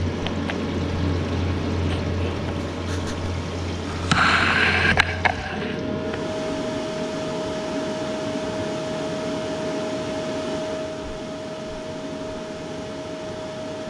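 PicoBrew Z1 homebrew machine's pump running with a steady low hum, water flowing through it during its rinse cycle. About four seconds in the water rushes louder, then the hum stops with a click, and a steady thin tone carries on to the end.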